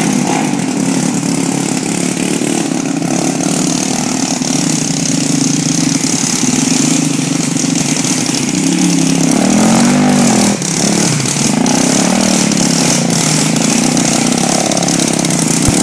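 Honda ATC three-wheeler engine running steadily, revving up and back down about nine to eleven seconds in.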